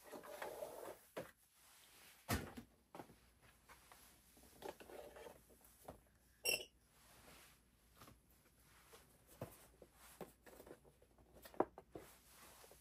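Faint handling of plastic toy dinosaur figures as they are moved and set in place, with soft rustles and clicks. There is a sharp knock about two seconds in, a short bright ping around six and a half seconds, and another sharp click near the end.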